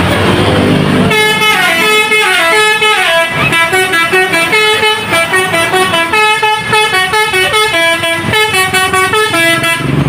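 Basuri telolet multi-tone horn on a tour bus playing a fast tune of stepped notes. It starts about a second in and keeps changing pitch in quick pulses.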